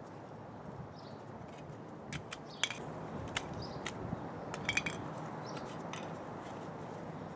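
Light clicks and taps from a plastic basket and fabric pouch being handled with rubber gloves, clustered in the middle. Birds chirp briefly now and then over a low steady hum.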